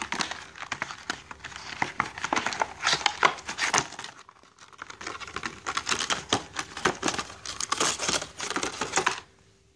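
Plastic blister packaging crinkling and crackling as the fish gripper is pulled out of it, with a short pause about four seconds in; it stops abruptly near the end.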